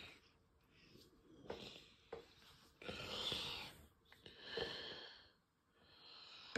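A person breathing slowly and faintly close to the microphone: several breathy puffs in and out, each about a second long, with short pauses between.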